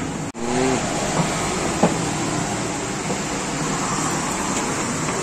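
Steady road traffic noise, an even rushing hum of passing vehicles. A short murmur of a voice comes just after a momentary dropout near the start, and there is a single click a little under two seconds in.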